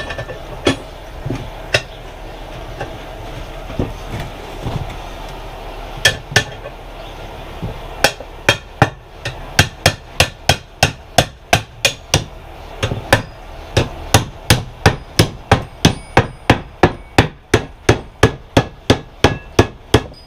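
Hammer blows on a heated steel starter ring gear, driving it down onto a 6.9 IDI diesel's flexplate. A few scattered strikes come first, then steady blows about two to three a second from about eight seconds in. The ring was not quite hot enough to drop on freely.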